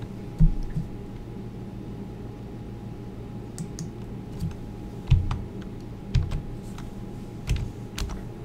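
Scattered keystrokes on a computer keyboard as a ticker symbol is typed in, separate taps and clicks a second or so apart, some with a dull thud, over a steady low electrical hum.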